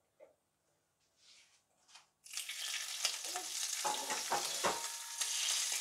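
Hot olive oil from a frying pan poured over a freshly seared venison roast in a ceramic baking dish, sizzling. After a near-silent start the sizzle breaks out suddenly about two seconds in and keeps going, with a few light knocks partway through.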